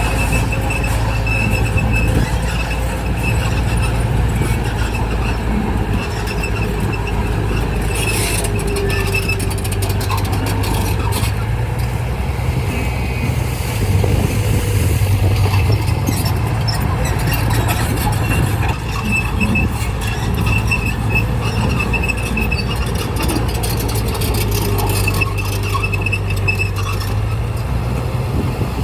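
Bulldozer's diesel engine running steadily under work, with a thin high-pitched squeal that pulses on and off, typical of a crawler's steel tracks.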